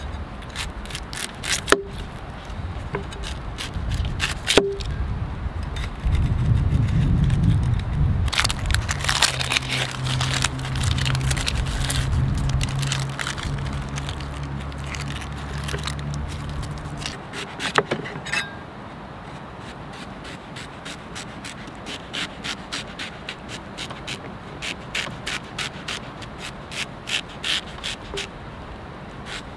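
A heavy forged cleaver-style chef's knife cutting a white onion on a wooden cutting board, with sharp knocks of the blade on the board and the papery crackle and scrape of onion skin being peeled. In the second half the knife slices in a run of quick taps. A low rumble and hum under the first half stops just past halfway.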